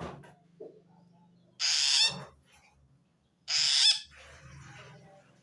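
Long-tailed shrike (cendet) giving two harsh screeching calls about two seconds apart, each lasting about half a second. This call is the sign of a shrike that feels threatened by a rival shrike.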